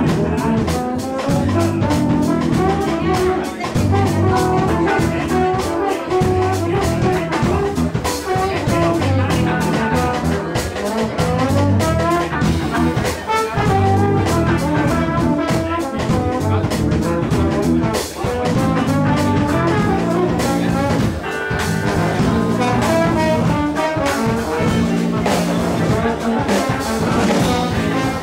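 Live band playing, led by a trombone over drum kit and electric guitars.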